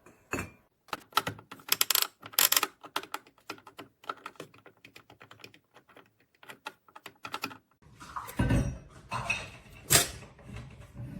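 A quick run of small clicks and taps, like something hard being handled, then heavier handling noise from about eight seconds in with a sharp click near the end.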